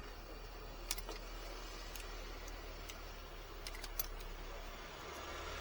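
A few light, sharp clicks at irregular intervals over a low steady hum.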